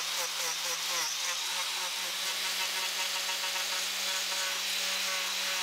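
Angle grinder with a power carving disc running and cutting into wood, a steady motor whine under a rough, high grinding noise, the pitch wavering in quick pulses over the first couple of seconds as the disc bites and is swept across the seat.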